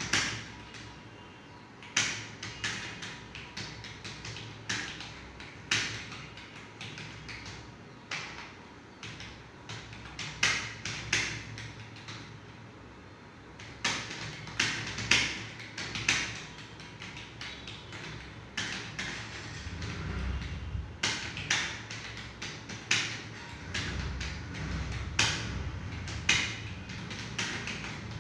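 Computer keyboard keys clacking in quick, irregular runs of keystrokes as a passage is touch-typed at speed, with a short pause about twelve seconds in.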